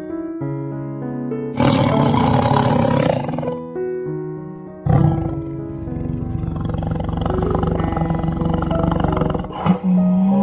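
Tiger roaring twice over piano music: a short roar about a second and a half in, then a longer one starting about five seconds in and breaking off near the end.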